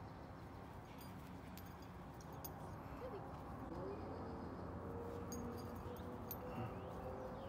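Faint outdoor background noise with a couple of brief, faint calls about three seconds in.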